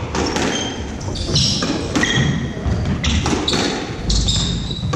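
Squash rally: the ball is struck by rackets and smacks off the walls and floor in a string of sharp hits. Short high squeaks from the players' shoes on the wooden court floor come in between.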